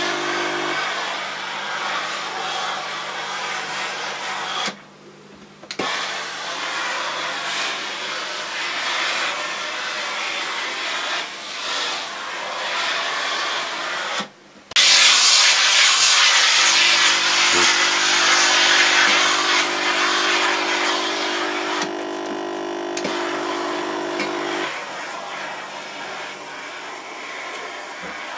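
Steam hissing from the iron of a high-pressure steam generator station as clothes on hangers are steamed vertically, the hiss growing louder about halfway through. A low steady hum joins for several seconds in the second half, and the sound cuts out briefly twice.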